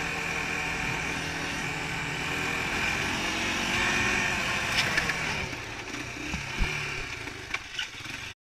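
ATV engine running steadily at riding speed, heard close from the rider's helmet camera, with a few small clicks. The sound cuts off abruptly near the end.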